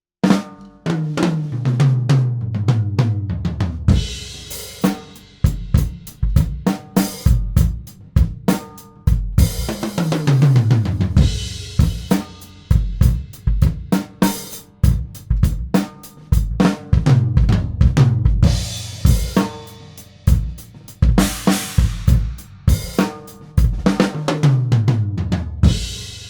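Tama Star walnut drum kit with Zildjian K cymbals played solo: a groove of kick, snare and hi-hat broken three times by tom fills that step down in pitch, with cymbal crashes along the way, and a final crash ringing out near the end.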